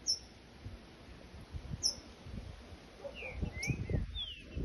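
Green-winged saltator (trinca-ferro) giving two short, sharp, high chirps, then a quick run of whistled notes sliding up and down about three seconds in, over low thuds and rustling.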